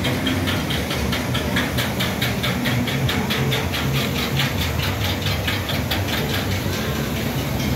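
Amusement ride machinery running: a rapid, even clacking, about five clicks a second, over a steady low hum as the ride vehicle travels along the track.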